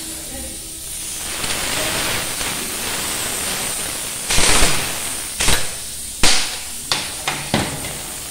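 Pneumatic impact wrench on a motorcycle's rear axle nut: a steady hiss of air for about three seconds, then a loud burst of hammering about four seconds in, followed by four or five short bursts.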